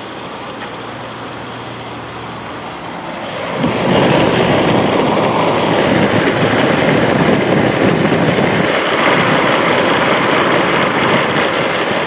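Refrigerant recovery machine running steadily while pulling refrigerant vapor from the low-pressure side of an air conditioning system. At first it is a low hum; about four seconds in it turns much louder and noisier, and it stays that way to the end.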